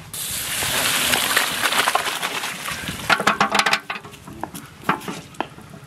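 Boiled noodles and their hot water poured from a large metal pot into a net-lined bamboo basket to drain, the water rushing and splashing through for about four seconds. A run of knocks and clinks follows near the end.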